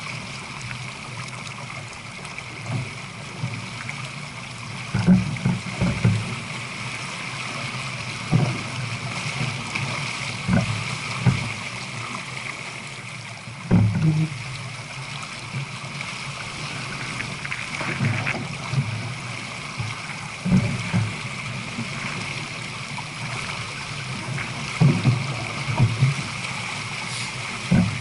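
Water rushing and gurgling along a J/24 sailboat's hull as it runs downwind at about 7 knots, with irregular low thumps every couple of seconds.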